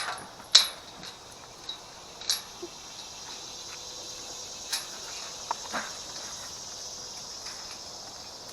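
Steady high insect chirring, with a few sharp clicks or knocks in the first five seconds, the loudest right at the start and just after.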